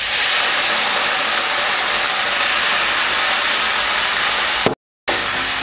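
Pork ribs sizzling in a hot stainless steel pan as Shaoxing wine hits it: a steady, loud hiss, strongest at the start, that cuts out for a moment near the end.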